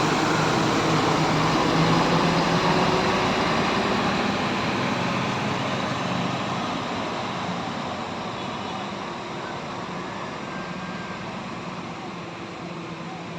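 Diesel bus engine running as the bus pulls away, its noise fading gradually.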